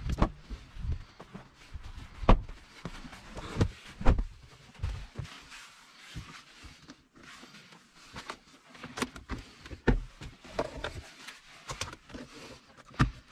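A car door latch clicking open near the start, then irregular clicks, knocks and rustling as hands feed wiring and handle the plastic centre-console trim around the gear shifter inside a car.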